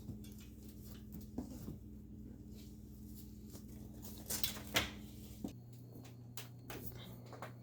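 A dog rummaging about: scattered light scratches and rustles, a few louder ones about four and a half seconds in, over a steady low hum that drops lower about five and a half seconds in.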